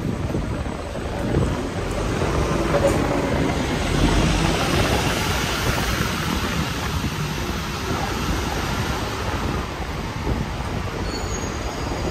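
Steady rumble of passing vehicles.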